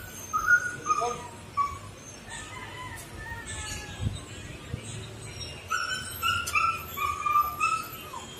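An animal whining in a run of short, high calls, some sliding down in pitch, coming thickest in the last few seconds.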